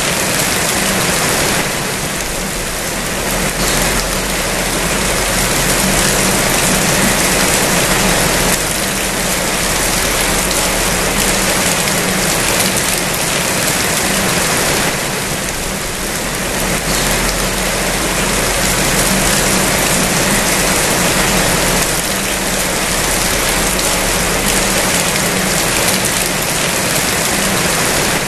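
Rain falling steadily, a dense even hiss of drops that swells and eases slightly every few seconds.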